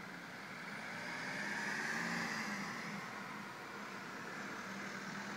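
A vehicle passing by: a whoosh that swells to its loudest about two seconds in, then fades to a steady background.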